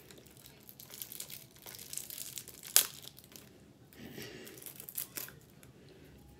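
Plastic and paper packaging crinkling and tearing as a kitchen timer's package is pulled open by hand, with one sharp crack about three seconds in.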